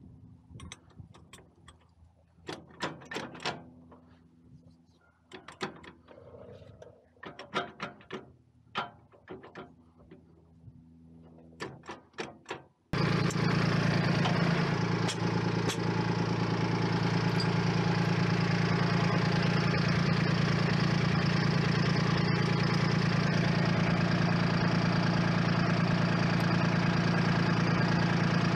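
Scattered metal clicks and knocks from the stabilizer pins and hardware being handled. About halfway through, the Kubota L2501 tractor's three-cylinder diesel engine cuts in suddenly and runs steadily and loudly.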